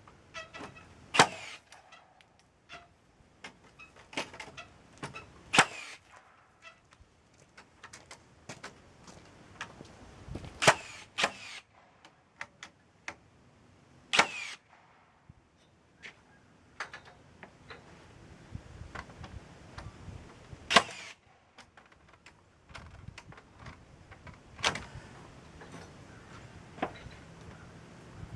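Carpentry work on wooden rafters: six loud, sharp strikes a few seconds apart, some with a short ringing tail, among many smaller clicks and taps.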